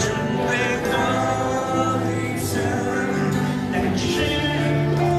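Live rock band playing a slow song with singing, heard from among the concert audience.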